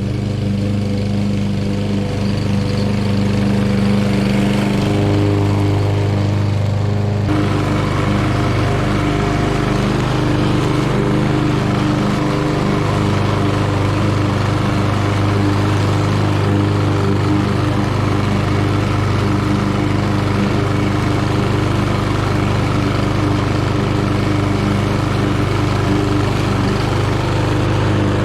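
Craftsman gas walk-behind lawn mower running steadily as it mulches fallen leaves and blows them into its rear collection bag. A rushing noise over the engine grows louder about a quarter of the way in.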